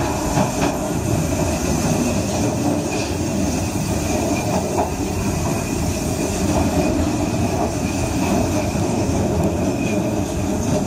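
A moving passenger train running along the track: a steady rumble of wheels on rail, with a thin, steady high wheel squeal on the curve and a few faint clicks.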